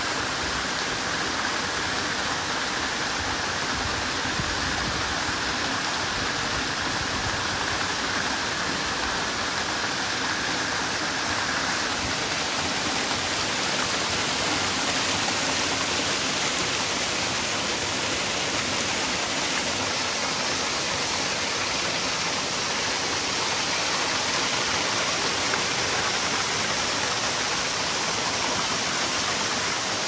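Waterfall and the cascades of its stream rushing steadily over boulders, a constant even roar of water.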